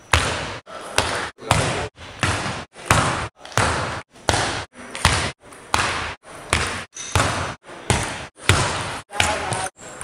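Table tennis ball strikes and bounces, about two a second, each a sharp crack that dies away quickly, cut one after another with brief silent gaps between.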